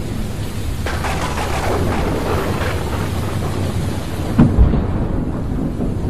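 Thunderstorm with rain. A crackling roll of thunder begins about a second in, and a sharp thunderclap with a deep boom comes a little past the middle, over a steady low rumble and rain.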